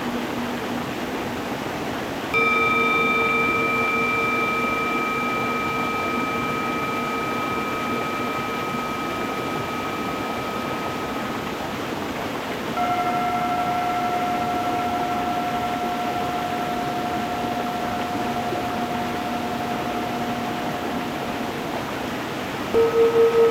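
Singing bowls struck one at a time, each ringing on with a long slow fade: one about two seconds in, a higher-pitched one about halfway through, and another near the end with a pulsing wobble. Under them runs a steady rush of stream water.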